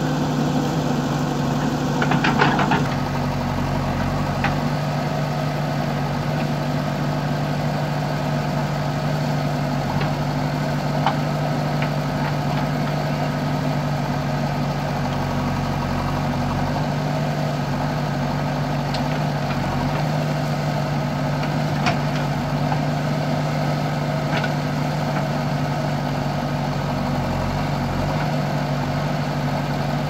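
JCB backhoe loader's diesel engine running steadily while the backhoe digs. Metal clanks and knocks from the arm and bucket come through, loudest about two to three seconds in, with a few fainter clicks later.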